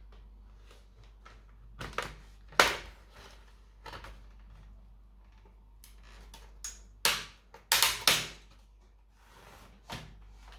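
Sharp clicks and knocks of a laptop's plastic casing and parts being handled during disassembly, over a low steady hum: one loud click about a quarter of the way in, then a quick cluster of three or four knocks about two thirds through.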